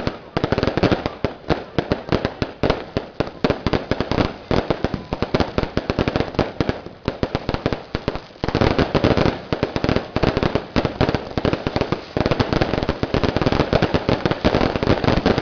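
Fireworks going off in a continuous rapid barrage of pops and crackles as coloured trails shoot up and burst, growing louder and denser about eight and a half seconds in.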